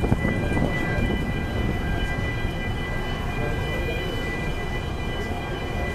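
The BLUE STAR 2 car ferry's engines and machinery rumbling steadily as the ship berths, with a steady high-pitched whine of several tones over the low rumble.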